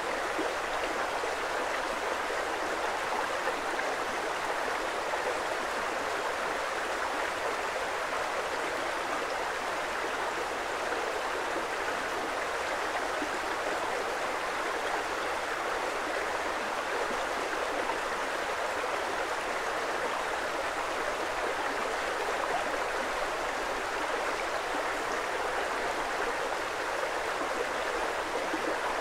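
Creek water flowing steadily: an even, unbroken rush of running water.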